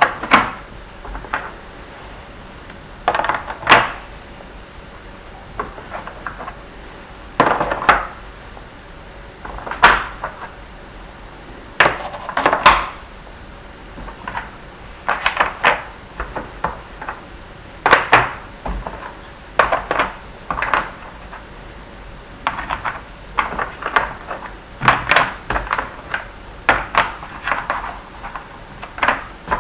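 Small geometric pieces of a Minnesota Spatial Relations Test form board being picked up and set into its slots, making irregular clicks and knocks every second or two, sometimes several in quick succession.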